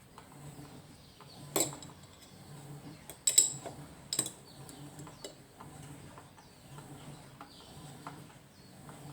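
A few sharp, ringing clinks: one about a second and a half in, a louder double strike near three seconds, and another shortly after.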